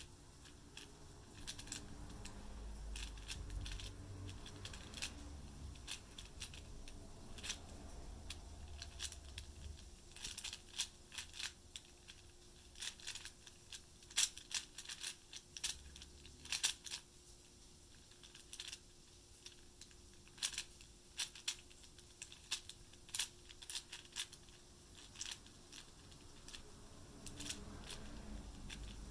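A 4x4 Rubik's cube being turned by hand: its plastic layers click and clack in quick, irregular runs. A low rumble of handling noise runs under the first ten seconds or so.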